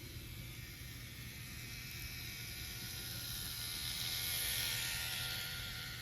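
Micro Ace N-gauge model of a Gakunan Railway 5000 series train running past: a whirring motor and wheels on the track, growing louder to a peak about four seconds in and then fading as it moves away.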